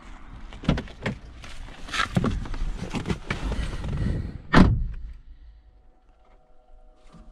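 Ford Fusion car door being opened and shut: two sharp clicks, a few seconds of rustling and knocking, then the door closing with one heavy thud about four and a half seconds in.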